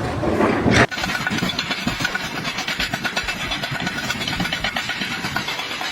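A short noisy burst that cuts off abruptly just under a second in, then an engine-driven machine running steadily with a rapid, even pulse.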